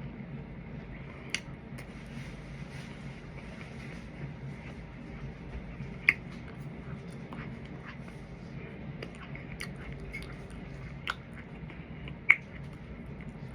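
Chewing and eating close to the microphone, with scattered sharp clicks and smacks, the loudest about six seconds in and again near the end, over a steady low hum.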